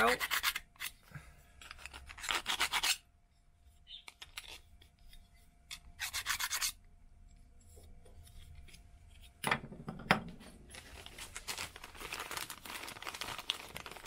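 Hand file scraping along the edge of a small aluminium U-profile in several short bouts of strokes, deburring excess metal around freshly drilled and tapped M3 holes.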